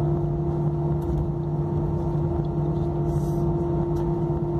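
Aeroplane engines droning steadily: a constant low hum carrying a couple of steady tones, with no change in pitch or level.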